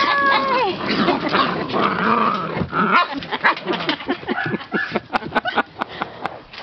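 A litter of Portuguese Water Dog puppies vocalising, with many short, high squeaks and whines in quick succession.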